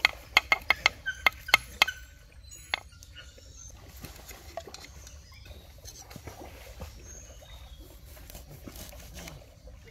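A quick run of about nine sharp, ringing clicks or taps in the first two seconds, then fainter scattered ticks with a few short high chirps.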